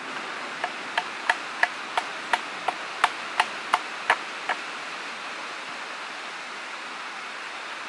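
A chunk of wood striking the top of an upright wooden stake to drive it into the sand: about a dozen sharp wooden knocks, roughly three a second, stopping a little after halfway. A steady hiss runs underneath.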